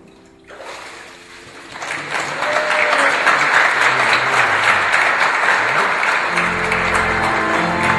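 A congregation applauding, starting about half a second in and swelling to full by about two seconds. Instrumental music comes in underneath about six seconds in.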